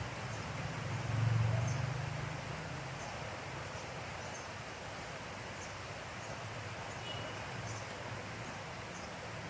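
Steady outdoor ambient hiss, with a low rumble that swells about a second in and fades, and faint high chirps repeating about once a second.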